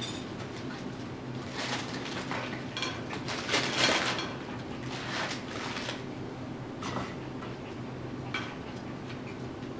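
Tibetan Terrier puppy scrambling through a fabric play tunnel and under a plastic sheet among toys: irregular rustling and clattering knocks, loudest about four seconds in.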